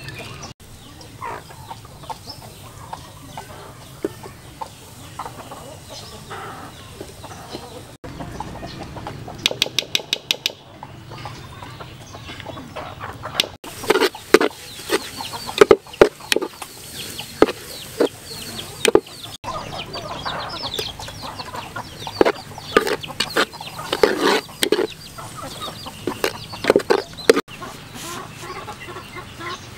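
Domestic chickens clucking in short, repeated calls, busiest in the second half. A quick run of about eight sharp ticks comes about a third of the way in.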